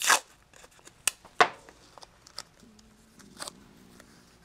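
Masking tape and a thin metal solder stencil being handled and pressed down on the bench: a few brief, sharp rustles and clicks, the loudest about a second and a half in.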